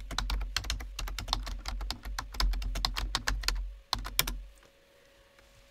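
Fast typing on a computer keyboard, a quick run of key clicks, ending with two louder key presses about four seconds in.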